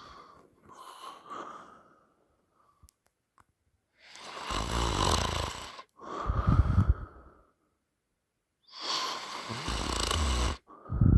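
A person snoring loudly through an open mouth: after a couple of seconds of quieter breathing, two loud breath cycles, each a long rasping breath followed by a shorter one with a deep rattle.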